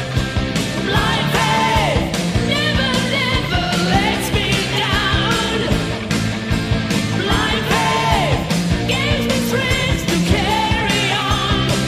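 1990 hard rock recording playing loudly: drums, bass and distorted electric guitars, with a high lead line wavering in pitch above them.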